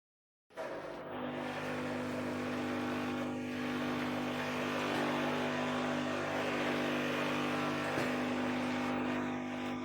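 Espresso machine's water pump running steadily with a buzzing hum while hot water flushes through the brewing head to rinse it. It starts about half a second in and fades out near the end.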